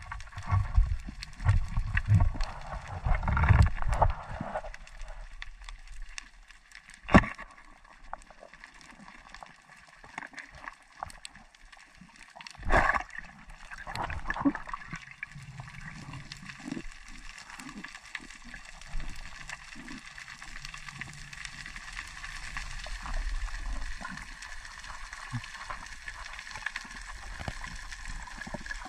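Underwater sound: water sloshing and gurgling, loudest in the first few seconds, over a steady hiss with a scatter of faint clicks. Two sharp knocks stand out, several seconds apart.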